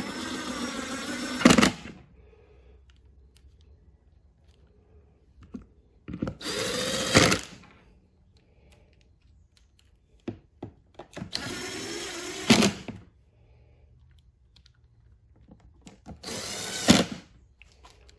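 Cordless power driver running four times, about a second each, driving screws into the generator's plastic side cover; the motor pitch climbs during each run, which ends in a sharp click as the screw seats.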